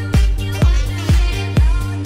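Background music: an electronic dance track with a steady kick-drum beat about twice a second.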